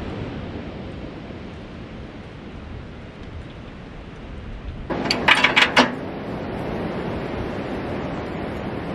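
Steady wind rushing on the microphone. About five seconds in comes a quick run of five or six sharp clicks, as the bucket hook hardware is handled.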